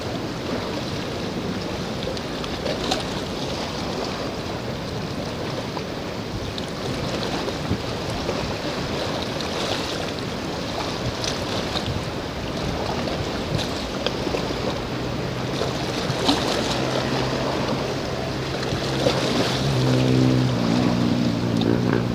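Wind and waves washing at the shoreline, a steady rushing noise. About two-thirds of the way through, a low engine hum, like a boat motor out on the water, comes in and grows stronger toward the end.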